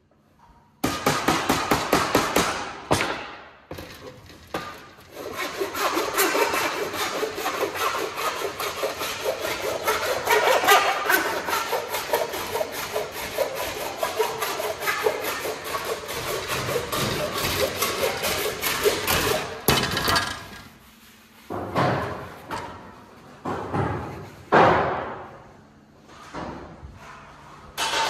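Sheet-metal panel being hammered over its edge on a wooden workbench: a long run of rapid, even hammer blows starts about a second in, followed near the end by a few separate, louder knocks.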